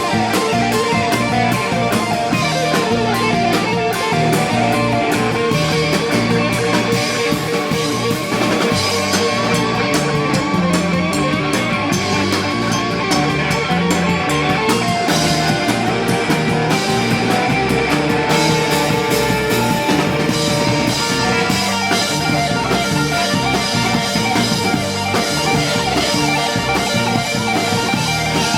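Rock band playing live, an instrumental passage of electric guitar over bass and drum kit with no vocals.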